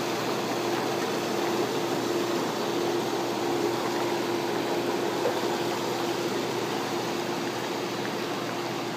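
Four Winds hot tub running with both jet pumps on: water churning hard and the waterfall fountains splashing, over a steady pump hum.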